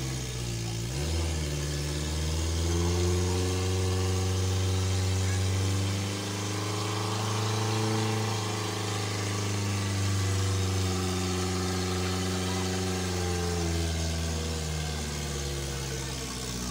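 Daihatsu Taft Hiline 4x4 engine working under load off-road. Its note rises in the first few seconds, then dips and picks up again several times as the throttle is eased and reapplied, and falls away near the end.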